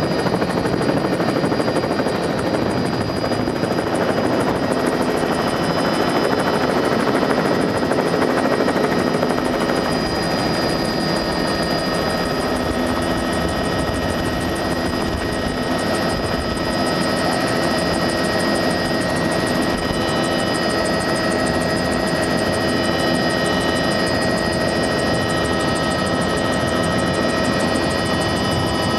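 Helicopter engine and rotor noise heard from inside the cabin as it lifts off and climbs: a loud, steady drone with several high whining tones over it.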